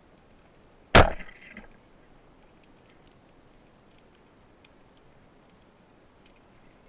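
A wooden speargun with double rubber bands fired underwater: one sharp, loud crack about a second in as the bands release, followed by a brief rattle and a smaller knock.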